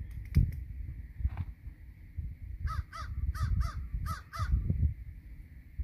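A crow cawing six times in three quick pairs, starting a little past halfway, over gusty wind rumble on the microphone.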